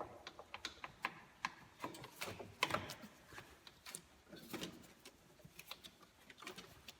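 Scattered light clicks and taps of hand tools working a heater hose and steel coolant pipe loose from the water-pump bypass on a 5.9L V8 engine, irregular and faint.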